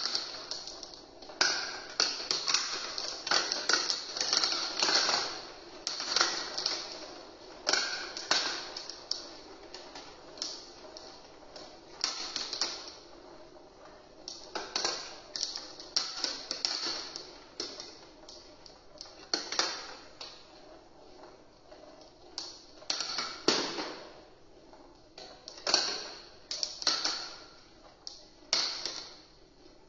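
Glass marbles rolling and clattering through a plastic marble run, clicking against the plastic track, funnels and blocks. The clicks come in rapid, irregular clusters with short lulls between them.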